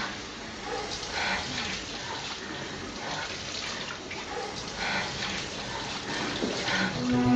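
Water running steadily from a washbasin tap, with a few brief splashes as cupped hands bring water up to the face.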